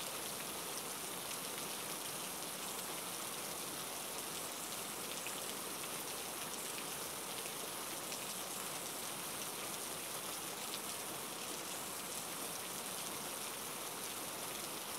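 Heavy rain falling steadily on open water and grass, an even hiss.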